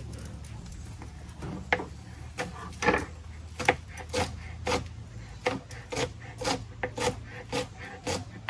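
Kitchen knife chopping fresh cilantro on a plastic cutting board. The strokes come steadily, about two a second, starting a second or two in.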